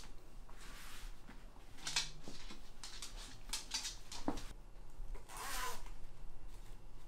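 Pet cooling vest being pulled onto a dog and fastened: fabric rustling and rubbing, with several short rasping bursts, the longest about five seconds in.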